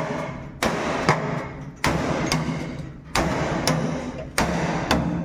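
Steady hammer blows on the bus's steel body panels, about two a second in a loose pairing rhythm, each strike followed by a short metallic ring.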